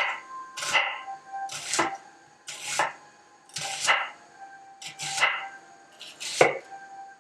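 A knife cutting food on a cutting board in slow, even strokes, about one a second: each cut a short slicing sound ending in a knock on the board.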